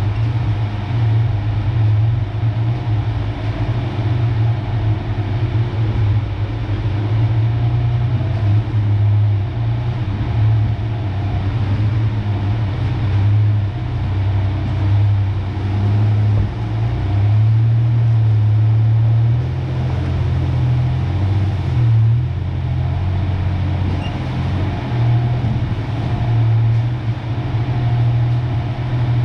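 1993 Ford Ranger pickup's engine running as the truck is driven slowly, a steady low drone whose pitch shifts slightly about twenty seconds in.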